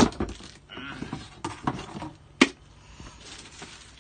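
Packaging being handled: a cardboard box shifted and a plastic-bagged coffee machine moved, with rustling and scraping and a few sharp knocks. The loudest knock comes about two and a half seconds in.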